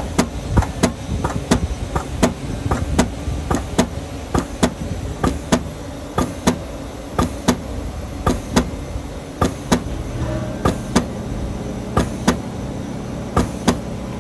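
High-pressure hydrostatic test pump stroking, a sharp click about twice a second over a steady low rumble, pressuring the valve body up for a 15,000 psi shell test. The clicks come less evenly in the second half.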